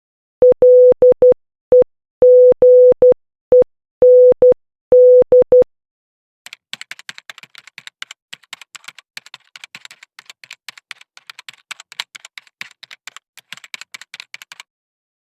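Morse code sent as a single-pitched electronic beep, keyed in short dots and long dashes for about five and a half seconds. After a short pause comes a long run of fast, irregular typing clicks lasting about eight seconds.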